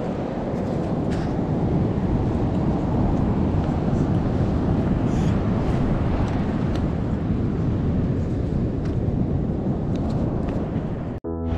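Wind buffeting the microphone, a steady low rumble with a few faint clicks; it cuts off abruptly near the end.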